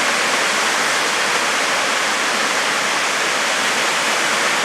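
Waterfall pouring, a steady, even rush of water.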